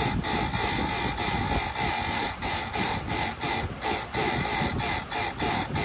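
Small electric chain sharpener grinding the teeth of a chainsaw chain: a steady high whine broken by short breaks about twice a second as it goes from stroke to stroke.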